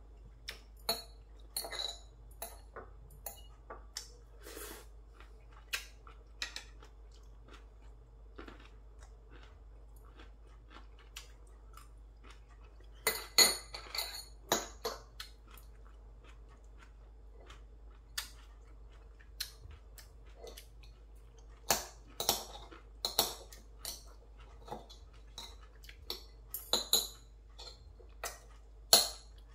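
Chopsticks clicking and clinking against plates and bowls while picking up food, in scattered light taps with louder flurries of clinks about halfway through and near the end.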